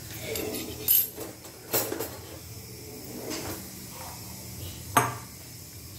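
White plastic spoon stirring grated vegetables in a glass bowl: a soft scraping and rustling, with about four sharp knocks of the spoon against the bowl.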